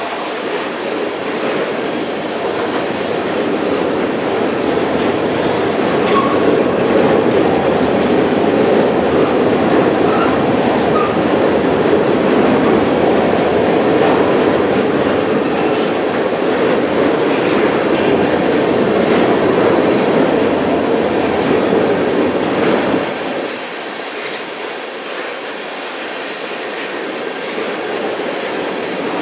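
Tank cars of a freight oil train rolling past: steel wheels rumbling on the rails with a clickety-clack of wheelsets over the rail joints. The noise eases a little about three-quarters of the way through.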